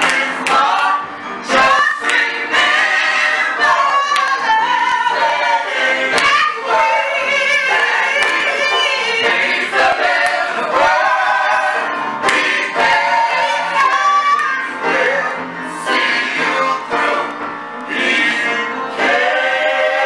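Gospel choir of mostly women's voices singing together in harmony into microphones, with strong vibrato on held notes.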